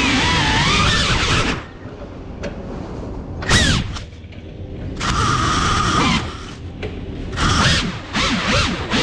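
FPV quadcopter's motors and propellers whining, with a pitch that slides up and down with the throttle. About a second and a half in the whine drops away as the quad comes down in the grass. It then comes back in short bursts, near the middle and again near the end, with a steadier whine between them as the motors spin up.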